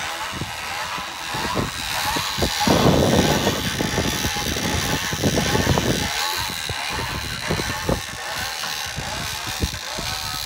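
Hand-cranked boat trailer winch being wound, its ratchet clicking in quick irregular strokes. A louder rough rushing noise covers about three seconds in the first half.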